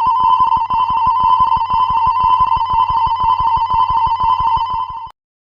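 Railway level-crossing warning bell ringing fast and continuously: a high, steady bell tone with rapid, even strokes. It cuts off abruptly about five seconds in.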